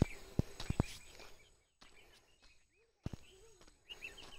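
Footsteps on a dirt track, several in the first second and one more about 3 s in, with short bird chirps and a steady high insect buzz behind them.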